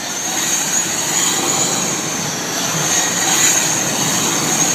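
Radio-controlled car driven in tight circles, its motor giving a steady high whine over a continuous rushing noise.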